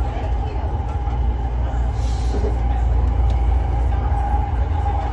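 Bombardier Innovia Metro 300 (ART Mark III) SkyTrain car running along the elevated guideway, heard from inside the car: a steady low rumble with a steady mid-pitched hum over it.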